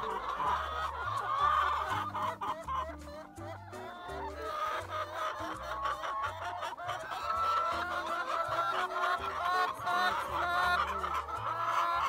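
Flock of brown laying hens clucking and calling in their nest boxes, with short calls repeating over and over, over background music with a stepping bass line.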